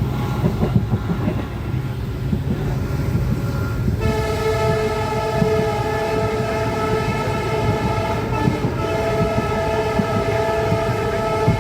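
Shrill EMD air horn of an Indian Railways WDP-4B diesel locomotive blowing one long blast, starting about four seconds in, over the low rumble of the running train.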